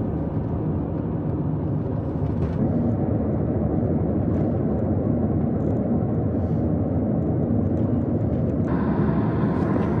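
Steady low rumble of a moving vehicle, growing a little brighter about nine seconds in.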